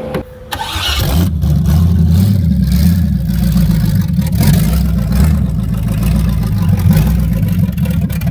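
A Camaro's engine running loud with a rough, uneven low rumble that comes up about a second in.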